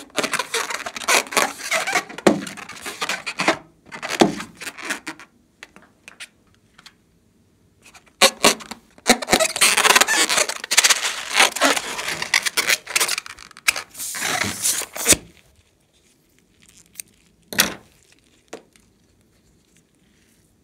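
Hands rubbing and squeezing a filled rubber balloon: crackly rubbing and scraping of the rubber in two long spells, then a few scattered clicks near the end.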